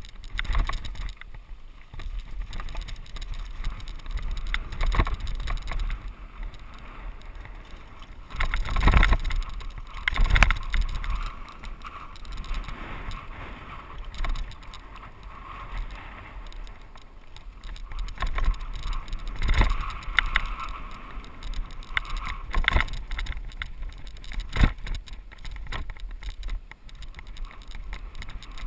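Mountain bike riding fast down a dry dirt singletrack: a steady rumble of wind on the microphone, with the tyres crunching and the bike rattling and knocking over bumps and rocks. The hardest jolts come about a third of the way in, and twice more later on.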